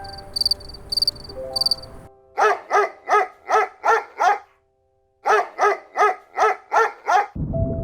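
An animal giving two runs of six short, evenly spaced calls, with a brief silence between the runs. Before that, high repeating chirps sound over music.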